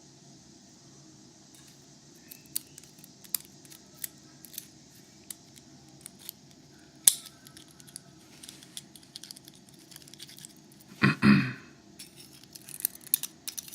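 Tweezers and tiny brass pins and springs of a Euro cylinder lock clicking and ticking as they are worked out of the cylinder, in scattered single ticks. About eleven seconds in, a louder scuffing clatter lasts about half a second.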